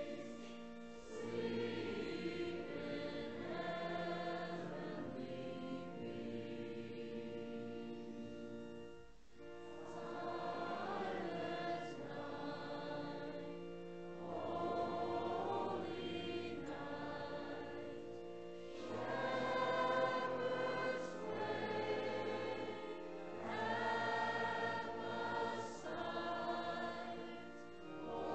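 A congregation singing a hymn together with long held notes over sustained organ accompaniment. Each phrase lasts a few seconds, with a brief breath pause about nine seconds in.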